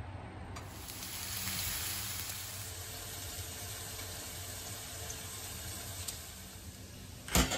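Steady sizzling of a beef burger patty frying in a hot pan, swelling about half a second in. A short knock near the end.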